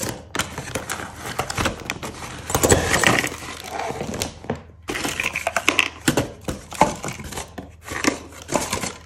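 Cardboard box and its inserts rustling, scraping and knocking as they are handled during unpacking, with irregular clicks and crinkles throughout and a brief lull about halfway.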